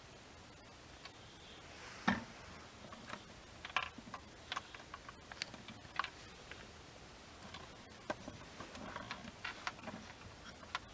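A series of irregular light clicks and taps, with one louder knock about two seconds in and denser clusters of clicks around the middle and toward the end.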